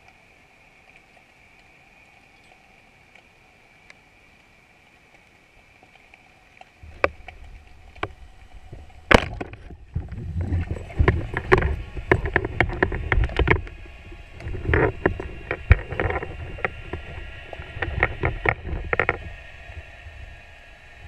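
Underwater sound heard through a GoPro housing during spearfishing: a faint steady hum, then from about seven seconds in a low rumble of water movement with a run of sharp knocks and clicks from the speargun, spear shaft and fish being handled. The loudest is a single sharp crack about nine seconds in.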